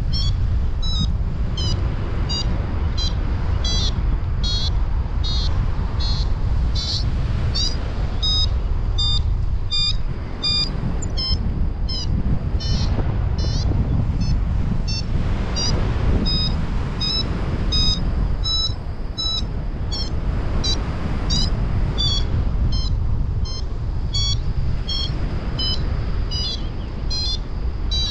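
Paragliding variometer beeping in short high chirps about twice a second, the pitch moving up and down. The beeping is the vario's climb tone, signalling lift. Steady wind rush on the microphone runs underneath.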